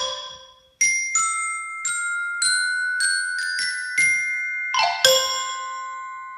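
A xylophone chord dies away, then after a short pause a glockenspiel plays a slow line of about ten high, ringing single notes. It ends on a chord about five seconds in, struck together with the Yamaha xylophone, and the chord rings on.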